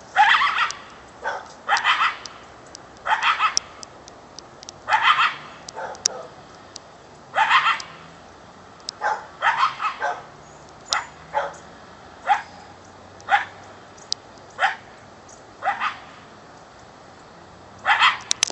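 Coyote barking over and over: short, sharp calls that drop in pitch, some in quick runs of two or three, about one every second or so. The uploader wonders whether it is calling to a mate.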